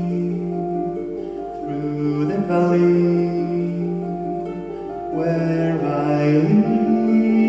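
Harp playing a slow passage of plucked notes over long held low notes that step in pitch every second or two.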